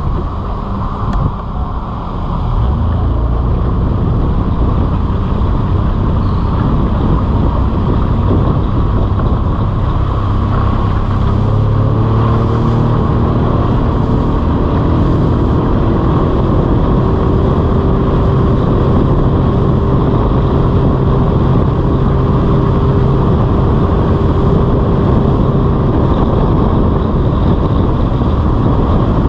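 Small speedboat's engine running at speed, a steady loud hum under a continuous rush of wind and water spray.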